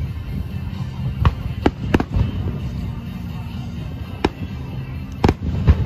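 Aerial firework shells bursting overhead, heard as a series of sharp booms: a cluster about two seconds in, one a little after four seconds, and a quick group near the end.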